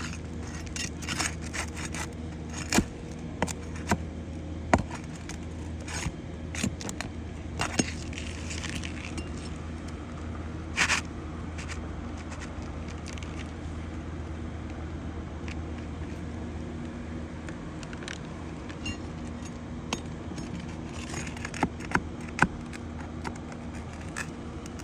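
Asphalt roof shingles being worked loose with a metal pry tool: scattered scrapes, clicks and metallic clinks as nails are pulled to lift a shingle out, over a steady low hum.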